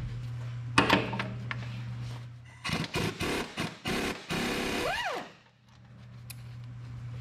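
Air impact wrench hammering on a truck torque rod bolt in several short bursts, then a longer run that ends in a brief rising-and-falling whine as it spins free and stops. The bolt is being broken loose. A sharp knock sounds about a second in.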